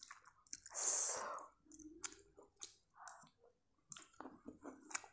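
Soft chewing and small mouth clicks of a person eating a mouthful of cheesy Maggi noodles, with a short breathy sound about a second in.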